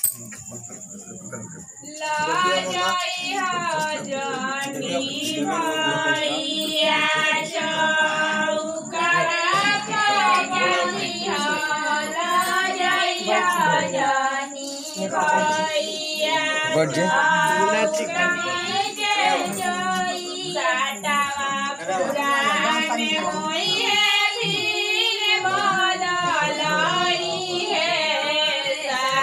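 Women singing together, a wavering sung melody with no instruments, starting about two seconds in.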